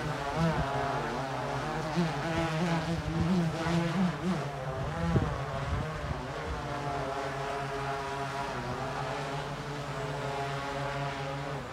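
Large quadcopter drone's propellers whining as it hovers and shifts position low over the ground. The pitch wavers up and down through the first half as the motors adjust, then holds steadier, with one sharp knock about five seconds in.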